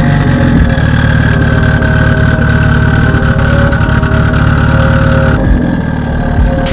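A car engine running loudly and steadily, its tone shifting about five seconds in.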